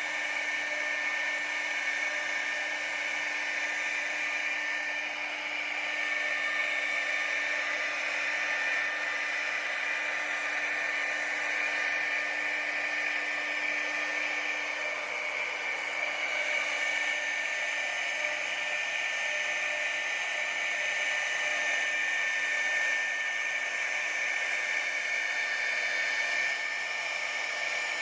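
CNC router spindle running steadily while carving, a high whine over a hiss that swells slightly as the cut changes.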